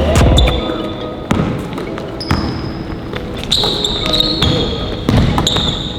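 Basketball bouncing on a gym court, several sharp thuds at uneven intervals, in a large echoing hall.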